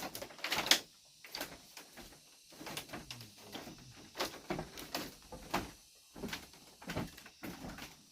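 Irregular wooden knocks and scrapes of bamboo being handled and worked, a few sharper ones near the start.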